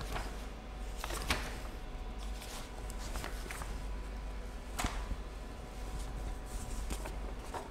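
Quiet room tone: a steady low hum with a few faint, sharp clicks scattered through it.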